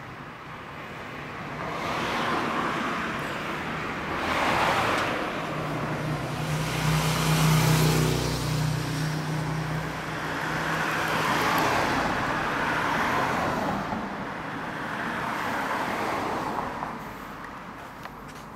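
Road traffic passing on a street: several vehicles go by one after another, each swelling and fading away, with a heavier vehicle's low engine hum loudest near the middle.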